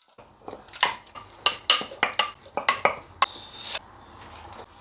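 A wooden spoon scrapes chopped onion and then ground spices off ceramic plates into an empty cooking pot, making a string of irregular clicks and knocks against the plate and the pot. A short scraping rush comes about three seconds in.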